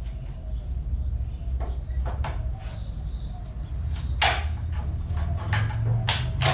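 Wooden pallet being pried apart: a series of sharp knocks and creaks of boards coming loose, louder from about four seconds in, over a steady low rumble.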